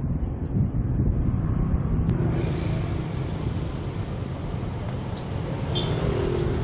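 Wind rumbling on the microphone of a camera carried on a moving bicycle, with car and motorbike traffic passing on the road; a car goes by near the end.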